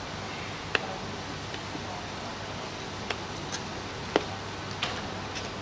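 A few short, sharp clicks and taps, four in all, the loudest about four seconds in, as small parts and tools are handled during the cooler fitting, over a steady low background hiss.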